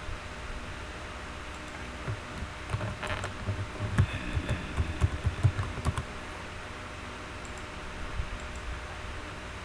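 Typing on a computer keyboard: a quick run of keystrokes from about two to six seconds in, over a steady low hiss.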